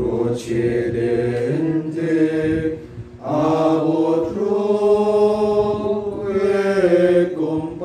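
Slow chanted hymn sung in long held notes, with a short pause for breath about three seconds in.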